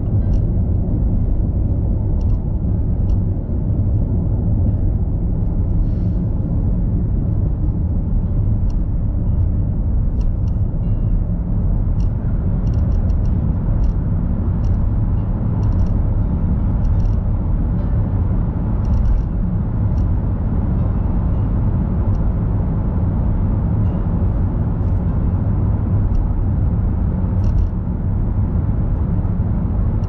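Steady low rumble of tyre and engine noise inside a car cruising on an expressway, with occasional faint high ticks.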